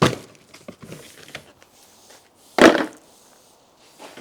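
Plastic storage tote being opened and handled: a sharp clack at the start, a few light knocks, then a louder, slightly longer clunk about two and a half seconds in.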